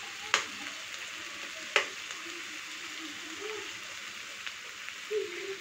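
Oil sizzling steadily in a frying pan of cauliflower as raw egg is cracked into it, with two sharp taps about a second and a half apart near the start.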